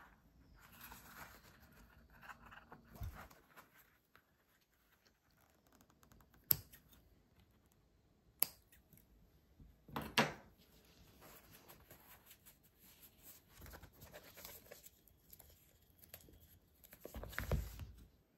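Quiet handling of a hand-sewn kraft-paper notebook: thread drawn through the folded signatures with a soft rasp, then paper rustling. There are two sharp clicks about two seconds apart, a louder rustle around the middle, and a rustle with a low thump near the end as the book is pressed flat.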